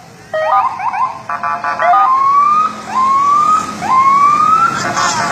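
Police vehicle's electronic siren sounding a quick run of short chirps and stepped tones, then three rising whoops about a second apart, then more short stepped tones near the end.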